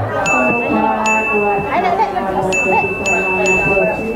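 A high, bell-like chime struck several times, ringing on between strikes, with the strikes coming about every half second toward the end. Voices murmur underneath.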